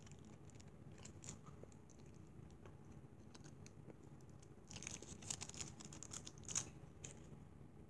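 Near silence, then a short run of faint clicks and crinkly rustles about five seconds in, the small sounds of handling food packaging at a table.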